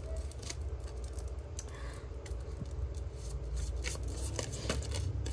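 Faint handling noises: scattered small clicks and scrapes over a steady low hum.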